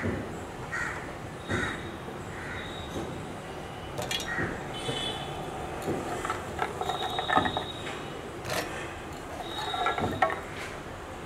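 Green chilies and whole almonds dropped into a stainless steel mixer-grinder jar, clattering and clinking against the metal in a few short bursts. A crow caws a few times near the start.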